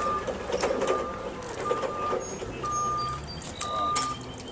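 Rollback tow truck's backup alarm beeping about once a second over the truck's running engine, with a few sharp metal clanks as the wrecked pickup is loaded onto the tilted bed. The engine hum grows stronger about halfway through.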